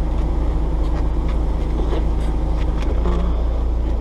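Steady low mechanical hum, with a few light clicks and rustles of parts being handled.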